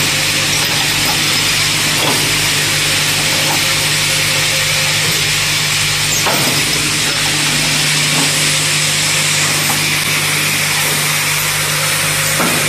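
Copper-tube orbital cutting and countersinking machine running: a steady mechanical hum under a constant hiss, with a few faint knocks several seconds apart.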